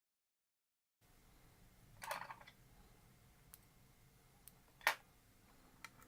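Dead silence for the first second, then a few separate clicks and small knocks of sewing machine parts being handled, with a short cluster about two seconds in and the loudest knock near five seconds.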